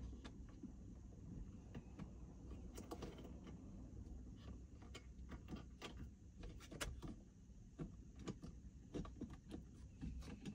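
Faint, scattered clicks and knocks of a rear-view-mirror phone holder's clamp being handled and fitted onto a car's rear-view mirror, over a low steady hum.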